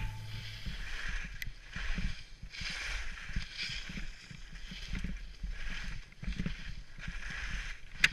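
Skis swishing and scraping through snow on linked turns, the hiss swelling and fading about once a second, over an uneven low rumble.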